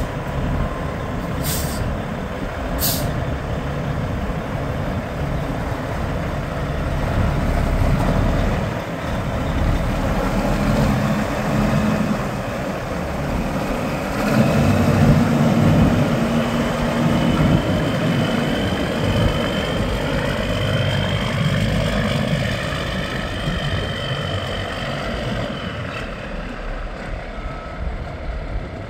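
2013 Kenworth T800 tractor truck's diesel engine running at idle, then pulling away and working up through the gears, with the engine note rising and falling. Two short hisses of air come about a second and a half and three seconds in.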